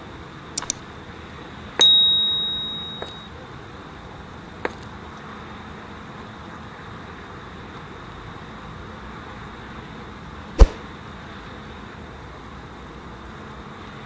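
A few quick mouse-click sound effects, then a bright notification-bell ding that rings out and fades over about a second and a half, as from a subscribe-button animation. One loud sharp knock about ten and a half seconds in, over faint steady hiss.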